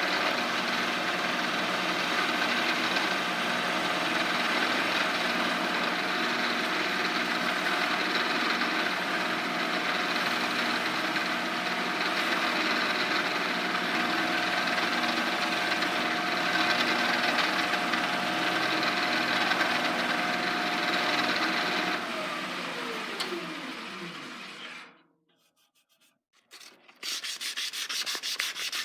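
An electric power tool runs steadily while wood is sanded against it. About 22 seconds in it is switched off and winds down, its whine falling in pitch over about three seconds. After a brief silence, quick, even strokes of wood being rubbed by hand, like sanding or filing, start near the end.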